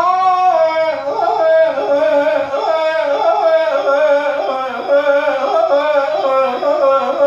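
A man singing Iraqi maqam solo into a microphone. His high voice holds long notes and winds through quick melismatic turns and wavers between them.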